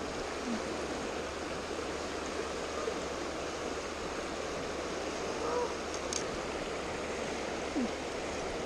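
Steady rushing of flowing river water around a wading angler, with one short sharp click about six seconds in.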